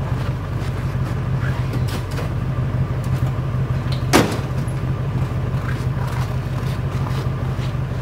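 Pickup truck engine idling steadily, with a single sharp clunk about four seconds in as a plastic gas can is set into the truck bed.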